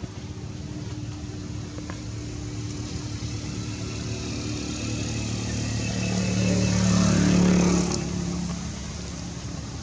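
A motor vehicle's engine passing by, growing steadily louder to a peak about seven seconds in, then fading.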